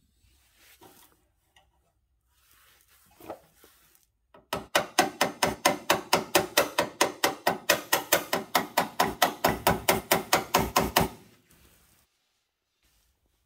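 Hand hammer tapping on sheet metal at a truck's cab corner: a fast, even run of sharp, ringing strikes, about five a second, for six seconds or so, shaping and fitting a formed repair piece.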